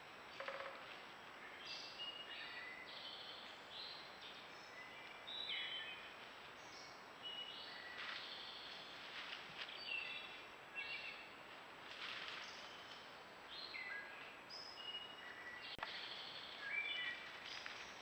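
Several songbirds singing, many short chirping notes one after another over a steady background hiss.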